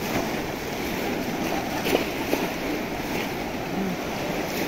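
A large crowd wading and splashing through shallow muddy water while pressing bamboo basket fish traps into the mud, heard as a steady wash of splashing.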